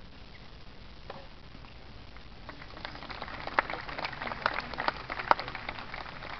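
Spectators applauding: scattered claps start about two and a half seconds in and thicken into a round of many quick claps that eases off near the end.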